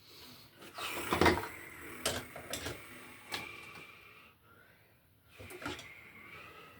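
Rusted metal electrical box being worked loose by hand and tool: irregular metal clicks and knocks with short scraping squeaks of corroded metal.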